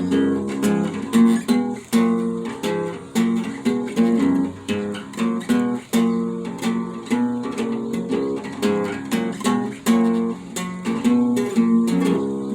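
Guitar being strummed, chord strokes in a steady, even rhythm with the notes ringing on between strokes.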